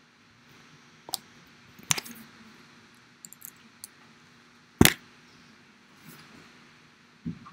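Scattered knocks and clicks over a low steady hum, with a sharp knock, the loudest, about five seconds in and a duller thump near the end.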